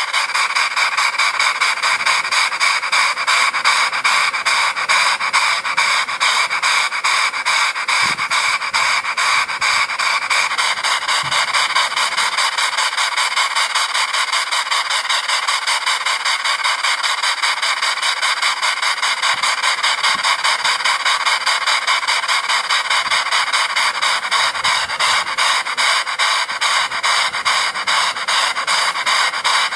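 Small model school engine running fast, its exhaust puffing in a quick, even rhythm, with the flyball governor holding its speed steady.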